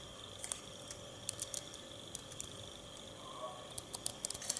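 Faint, scattered clicks of keys being pressed on a Flyshark folding Bluetooth keyboard, a few in quick succession near the end, over a steady faint background hum.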